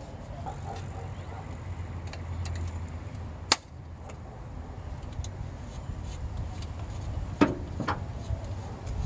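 Small sharp clicks and knocks of metal parts being handled on a carburetor as a part is worked off it by hand: one sharp click about three and a half seconds in and two knocks near the end, over a steady low rumble.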